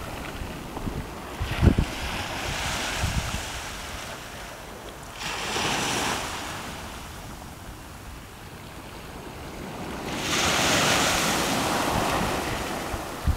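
Small waves breaking and washing up a shell- and pebble-strewn sand beach, the surf hiss swelling three times. Wind buffets the microphone in a few low thumps near the start.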